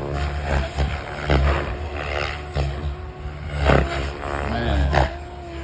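SAB Goblin Raw electric RC helicopter hovering: its motor and rotor make a steady whine, over an uneven low rumble.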